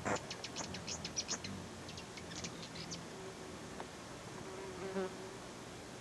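Hummingbird at a feeder: a quick run of sharp, high chips over the first three seconds, then the steady low hum of its beating wings, loudest about five seconds in.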